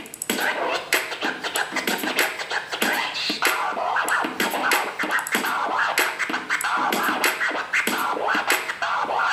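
Rapid record scratching by hand on a Numark PT01 Scratch portable turntable, over a backing beat played from the turntable's USB drive.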